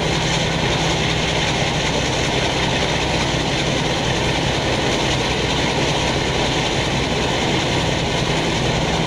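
Class 50 diesel locomotive's engine running steadily with a low, even hum as the locomotive draws slowly up to the platform.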